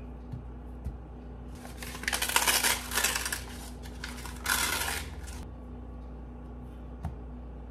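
Paper wrapper of a refrigerated biscuit can being torn and crinkled, in two rustling bursts: one a little under two seconds in, a longer one, and a shorter one near five seconds.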